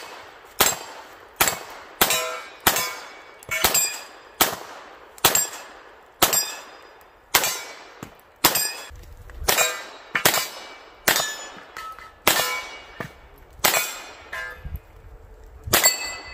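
A rapid string of handgun shots, about one every half second to a second, many followed by the clang and ring of struck steel targets.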